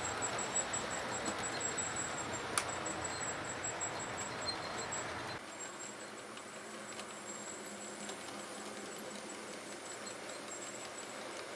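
HO scale model trains running on the layout: a steady faint buzz of small electric motors and wheels on track, with one sharp click about two and a half seconds in. The sound drops and thins a little over five seconds in.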